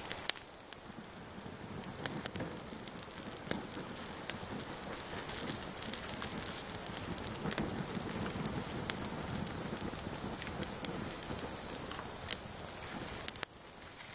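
Small tinder fire of birch bark and fine dry twigs burning and crackling, with scattered sharp pops over a steady hiss.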